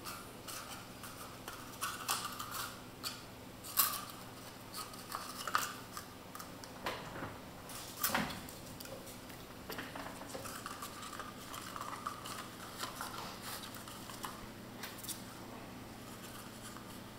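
Empty cardboard toilet-roll tube being batted, rolled and knocked about on a ceramic tile floor by a kitten: irregular light taps, clatters and scrapes, a few of them sharper.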